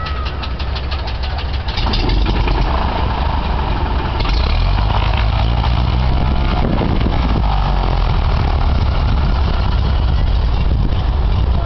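Cessna floatplane's piston engine being turned over by the starter with a rapid even clicking, catching about two seconds in and running, then throttled up to a louder steady run about four seconds in as the propeller pulls the plane away.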